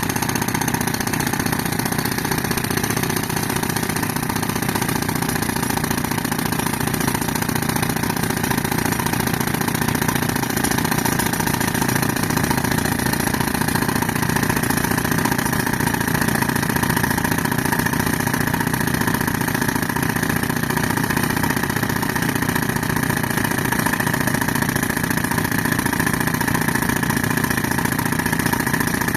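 Tractor engine running steadily at an even pitch, driving an air compressor.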